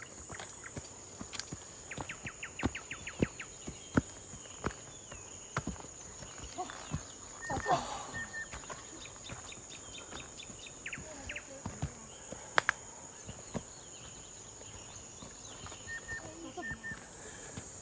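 Footsteps of hikers on a forest trail, as irregular scuffs and knocks, over a steady high-pitched drone. Short bird chirps and quick runs of ticking calls come and go, with a few chirps about halfway through and again near the end.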